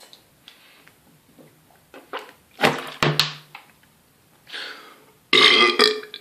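A person belching several times in a row, a series of loud, deep burps with the longest and loudest near the end.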